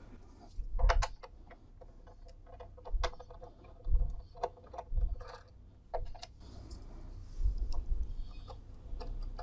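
Screwdriver undoing a small screw from a turntable's metal top plate: scattered, irregular light clicks and ticks of tool and screw, with a few soft low knocks, and the loose screw set down on the plate.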